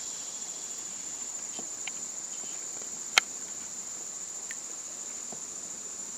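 A steady, high-pitched chorus of insects along the river, with one sharp click about three seconds in.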